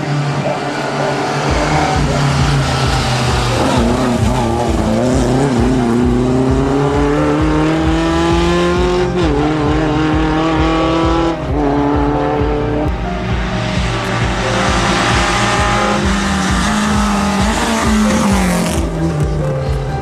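Rally car engine pulling hard, its pitch climbing slowly and stepping down at gear changes, with tyre squeal through the tight tyre-chicane turns. A steady low beat runs underneath, like the drums of background music.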